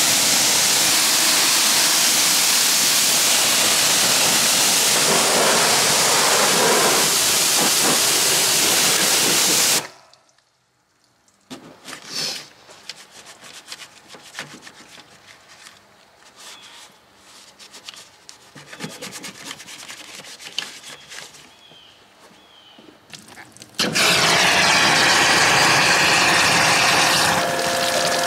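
Pressure washer spraying water onto an engine bay, a loud steady hiss that cuts off suddenly about ten seconds in. Then faint brush scrubbing and light taps on the engine parts, until loud running water with a steady motor hum starts near the end.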